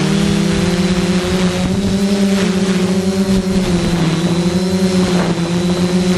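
Zion EX460 multicopter's electric motors and propellers humming steadily while it flies in strong wind. The hum's pitch wavers up and down slightly as the motors adjust their speed to hold against the gusts, with a hiss of wind noise underneath.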